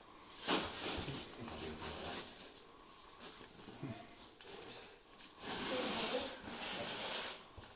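Indistinct low voices mixed with bursts of scuffing and rustling as hikers brace against sandstone slot-canyon walls. There is a short burst about half a second in and a longer stretch near the end.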